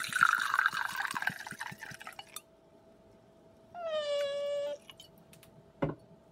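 White wine poured from a glass bottle into a stainless steel tumbler, a splashing pour lasting about two seconds. About a second later a cat meows once, one steady call about a second long, and near the end the bottle knocks as it is set down on the wooden table.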